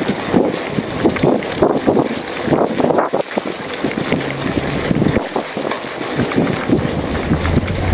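Mountain bike rolling over a dirt and gravel track: tyres on loose ground and the bike rattling in a dense run of small knocks, with wind buffeting the microphone.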